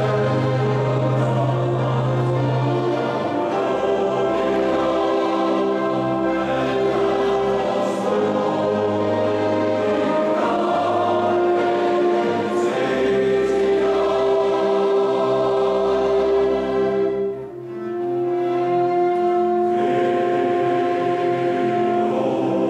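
Men's choir singing the Credo of a mass setting in held, sustained chords, with a short break between phrases about three-quarters through.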